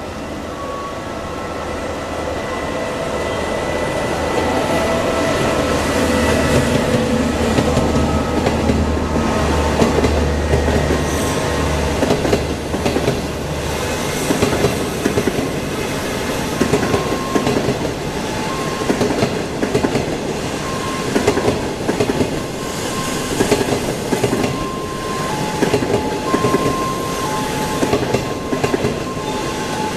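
SS9 electric locomotive passing with a low hum that builds over the first few seconds and stops about halfway through. Green 25K passenger coaches then roll by with a regular clickety-clack of their wheels.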